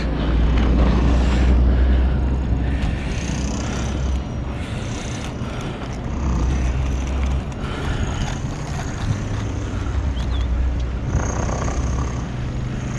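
Wind rumbling and buffeting on the microphone in gusts. From about nine seconds in, a steady engine hum from an approaching four-wheeler (ATV) grows under it.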